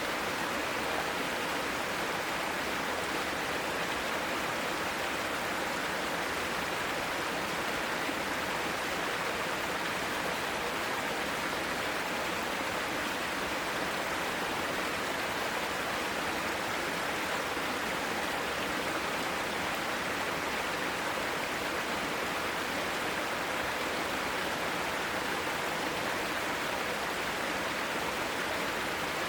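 Mountain stream water rushing steadily over rocks in a mossy valley, a constant even rush with no breaks.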